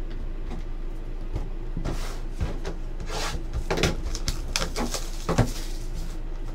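Shrink-wrap plastic being torn and peeled off a sealed trading card box, crinkling in short bursts, with the cardboard box knocking against the table and one sharper knock about five seconds in.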